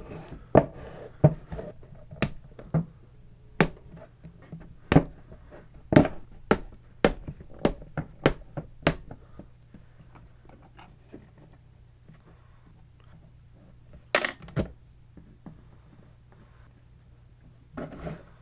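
Small screws being taken out of a version 2 airsoft gearbox shell with a screwdriver and set down on a hard surface: sharp metallic clicks and clinks, about a dozen over the first nine seconds, then a pause and a few more about fourteen seconds in.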